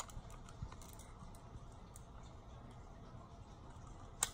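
Faint plastic clicks from a small toy blaster being handled, with one sharp click about four seconds in.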